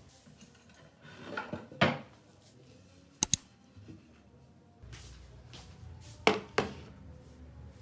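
A wooden cutting board slid and set down on a cloth-covered wooden table, ending in a knock, then two sharp clicks, then two plastic food containers set down on the table one after the other with two knocks.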